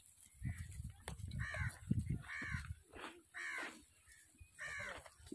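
A crow cawing, about four harsh caws roughly a second apart, with a low rumble under the first caws.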